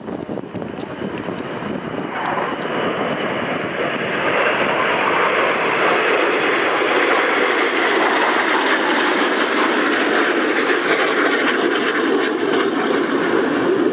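Jet engines of a formation of aerobatic jets flying a display. The noise builds over the first four seconds and then holds steady and loud.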